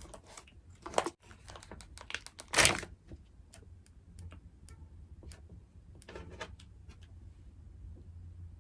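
Close-miked eating sounds: chewing and wet mouth clicks, dense at first and then sparse, with one louder noisy burst about two and a half seconds in.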